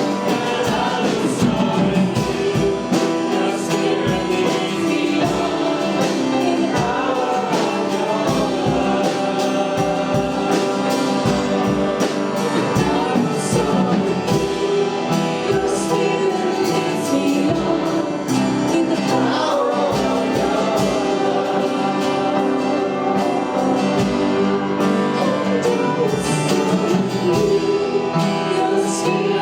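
Congregational worship music: singing backed by instruments with a steady beat.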